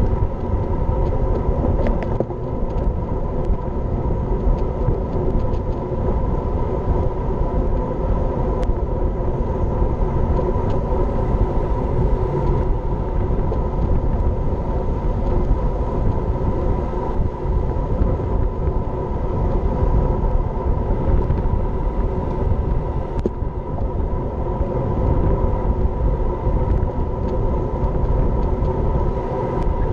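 Wind buffeting an action camera mounted on a road bike riding at speed with a group of cyclists, making a loud, steady rush. A steady hum runs underneath, with a few small clicks.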